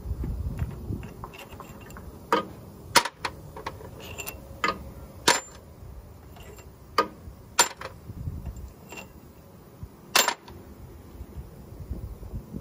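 Sharp metal clinks, about seven spread unevenly, some ringing briefly, as steel parts are handled on the cylinder head of a John Deere 2010 tractor engine during teardown.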